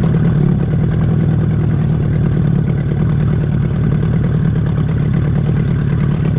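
Boat's outboard motor running steadily at slow trolling speed, a loud, even low hum.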